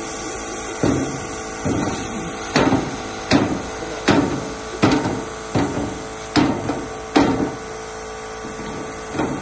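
A large cylindrical engine air filter element knocked against an aluminium checker-plate table, about nine knocks spaced under a second apart and one more near the end, shaking out the desert sand clogging it.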